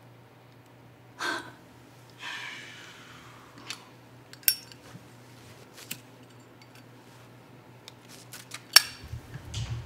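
Scattered sharp clicks of a handheld lighter being worked, the loudest near the end, over a steady low hum. Two brief vocal sounds come in the first few seconds.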